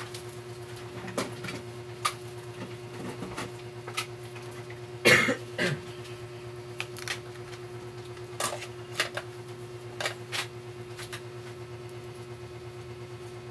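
Scattered small clicks and taps of laptop parts and connectors being handled and fitted during reassembly, over a steady low hum. About five seconds in, one short loud cough.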